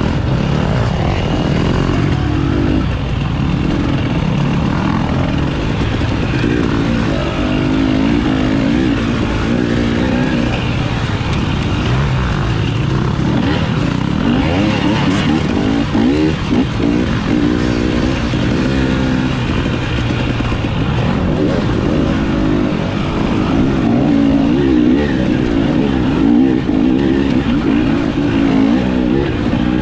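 Dirt bike engine running under load, revving up and down with the throttle as it rides a twisting trail.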